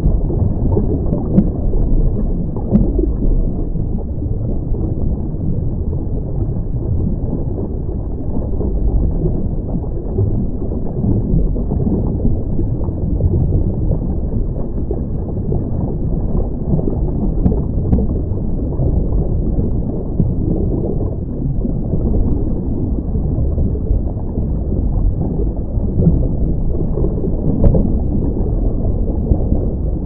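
Muffled, steady underwater rumble picked up by a camera in a waterproof housing on a scuba dive, with a few faint clicks.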